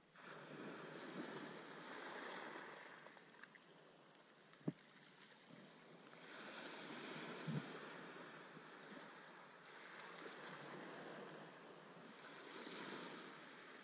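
Small waves washing against a wooden groyne and the shore, swelling and fading about every five or six seconds. Two short knocks, about four and a half and seven and a half seconds in.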